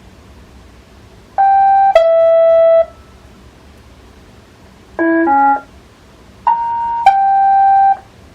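iRobot Roomba 692 robot vacuum playing its electronic locate tune: short groups of two or three clear beeping notes, three times, with pauses between them.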